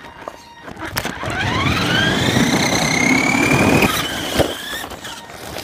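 Radio-controlled monster truck speeding up: its motor and gears whine, rising steadily in pitch for about three seconds over a low rolling rumble, then cut off, with a single click a moment later.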